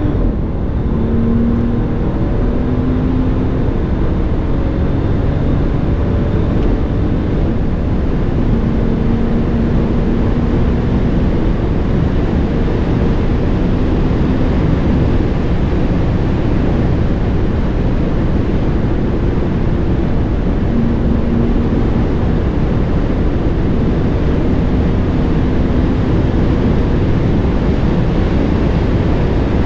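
Mercedes S65 AMG's twin-turbo V12 running at a steady high speed, a faint even engine drone under a constant rush of wind and road noise, with no revving or gear changes.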